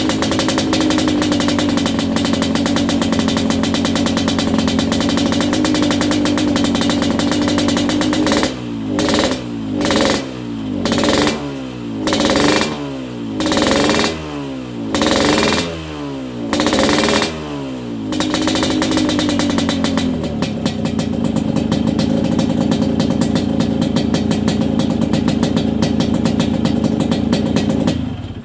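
Yamaha RX-King two-stroke single-cylinder engine, fitted with a 'kolong' aftermarket exhaust, revved hard and held at high revs. A little over a third of the way in it is blipped about seven times in a row, the revs falling back after each blip, then it is held high again.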